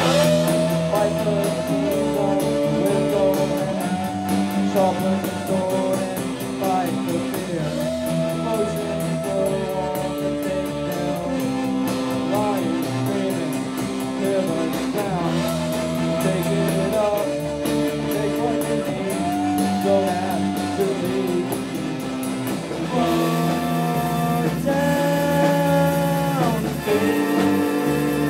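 Small rock band playing live, with electric guitar and a man singing long, wavering notes; the song moves into a new section about three-quarters of the way through.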